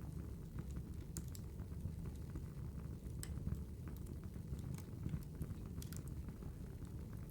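Wood fire burning: a steady low rumble with irregular sharp crackles and pops.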